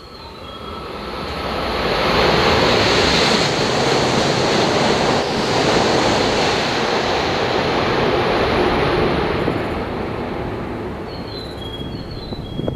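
Tohoku Shinkansen bullet train passing straight through the station at high speed: a loud rush of air and wheels that builds over the first two seconds, holds for several seconds, then slowly fades.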